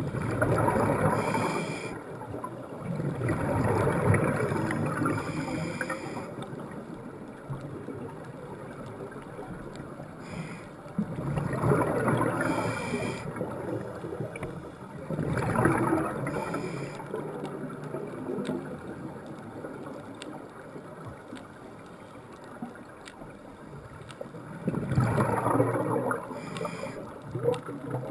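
A scuba diver breathing through a regulator underwater: five bursts of exhaled bubbles of about two seconds each, at uneven spacing, with a quieter steady underwater background between them.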